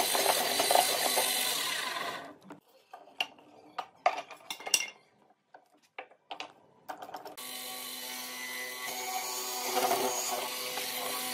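Electric power tool running on wood, stopping about two seconds in. A few sharp knocks and clicks follow, then the tool starts again about seven seconds in and runs on steadily.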